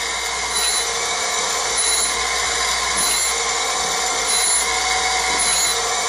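Surface grinder's stone wheel (100–110 grit) grinding the flat of a steel knife blade held on a magnetic chuck and wetted with WD-40. The grinding hiss is steady, with a faint high note coming and going about once a second as the table makes quick back-and-forth passes.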